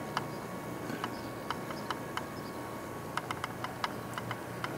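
Scattered light clicks at an uneven pace, more frequent after about three seconds, over a faint steady hum.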